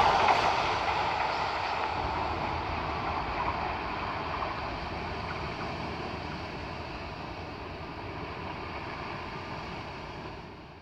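Renfe passenger train running away along the line, its rolling noise fading steadily as it recedes.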